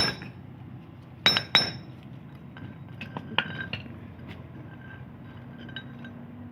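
Metal parts of a concrete vibrator needle being knocked and handled with tools during repair: two sharp ringing metallic clinks about a second and a half in, then several lighter clinks over a low steady hum.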